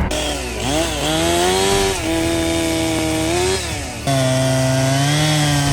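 Chainsaw running at high revs while clearing fallen trees. Its pitch sags and climbs back twice, about half a second in and again about three and a half seconds in.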